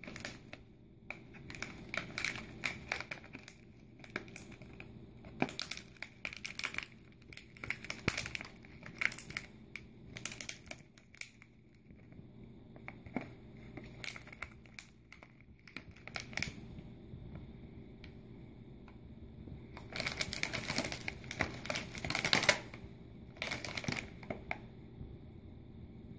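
Foil-lined chip bag crinkling and rustling in irregular bursts as a kitten noses and paws at it, with a quieter stretch past the middle and the loudest crinkling about three-quarters of the way through.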